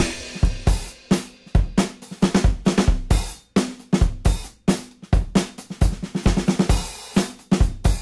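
Background music: a rock drum-kit beat of kick, snare, hi-hat and cymbals, with little or nothing else playing.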